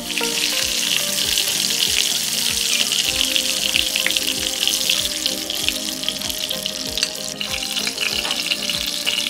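Pirozhki shallow-frying in hot vegetable oil in a pan: steady sizzling with fast fine crackles.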